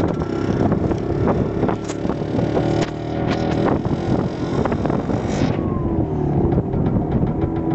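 A vehicle engine running under way, with frequent rattles and knocks over a rushing noise for the first five seconds or so. After that the rushing fades and the engine note carries on more steadily.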